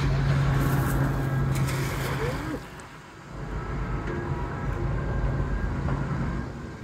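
Background music: a Vietnamese-language song track with a steady low tone, sliding vocal-like notes and short held melody notes.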